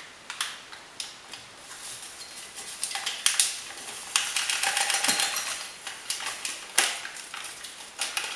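Ration food packets crinkling and rustling as they are handled, with scattered sharp clicks and a denser stretch of crackling around the middle.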